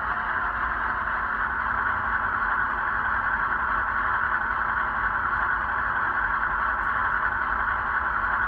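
ESU 21-pin sound decoder in an HO scale ES44AC model locomotive playing the GE diesel's idling engine through small Bowser sugar cube speakers: a steady, unchanging drone.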